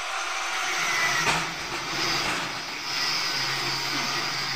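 Electric drill running steadily under load, drilling holes to fix a steel window grill into a brick wall.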